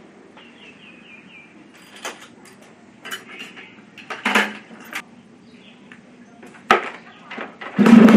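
Scattered light metal clinks and knocks of hand tools and carburettor parts being handled, a handful of separate strikes with quiet between them. Near the end a much louder, steady sound suddenly begins.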